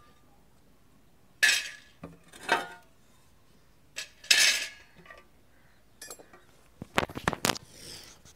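Thin metal burner caps and rings from a gas stove clanking as they are lifted off the hob and stacked on the ground: single clanks about a second and a half in, a second later, and near the middle, then a quick run of knocks near the end.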